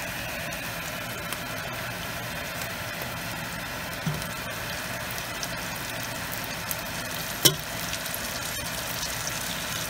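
Chopped onions sizzling steadily as they fry in oil in a pot, with a small knock about four seconds in and a sharper one about two-thirds of the way through as tomato pieces are dropped in.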